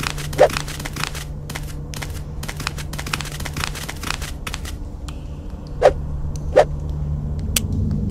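Footsteps of several people walking on a hard floor, a knock every second or less with lighter scuffing clicks between, over a steady low hum.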